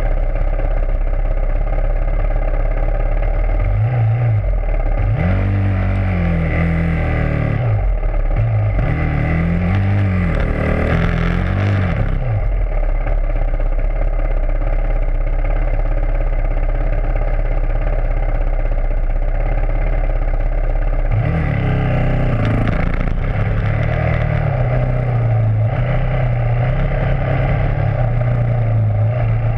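Dirt bike engine running hard along a trail, its revs climbing and dropping again and again through two stretches of the ride, with steadier running in between. Heard close up from the bike's rear fender, under constant wind and rattle.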